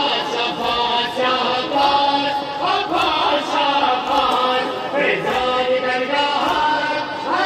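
A large crowd of men chanting a Shia mourning chant (noha) together, with sharp slaps about every two-thirds of a second that keep the rhythm of the chest-beating (matam).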